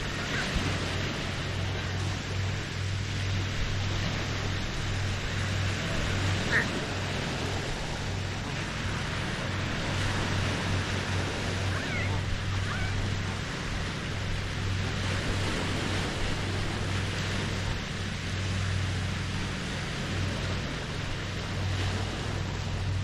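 Small Lake Huron waves lapping steadily on the shore, over a steady low hum, with a few brief bird calls, once about a quarter of the way in and twice around the middle.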